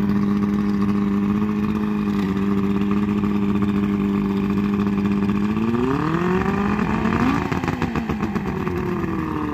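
Johnson 140 hp V4 two-stroke outboard, cowling off and running out of the water on a flushing hose, idling steadily. About five and a half seconds in it is revved once: the pitch rises, peaks near the seven-second mark, then settles back to idle.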